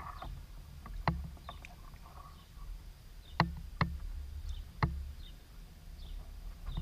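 Canoe being paddled on a river: water noise with about four sharp knocks at irregular intervals.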